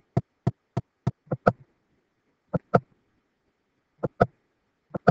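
Computer mouse clicking about a dozen times: a quick run of six clicks, then three pairs of clicks spaced a second or more apart.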